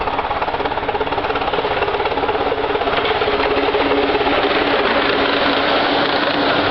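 Miniature-railway train on the Romney, Hythe & Dymchurch Railway's 15-inch gauge line running with a rapid, even beat. A steady hum of two tones comes up about halfway through.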